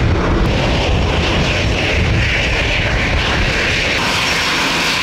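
Twin-engine jet airliner taxiing in, its engines giving a steady roar with a hissing whine that grows from about a second in. Wind buffets the microphone with a heavy rumble that eases near the end.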